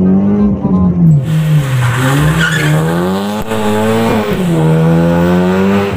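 Car engine revving up and down, dropping in pitch twice and climbing again, as the car is flung through slalom-style turns. From about a second in, tyres squeal and skid over it.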